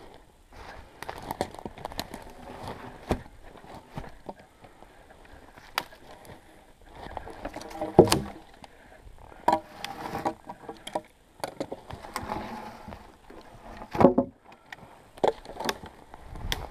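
Felled birch poles and branches being handled on snow: rustling of twigs and scattered sharp wooden knocks, the loudest about eight and fourteen seconds in.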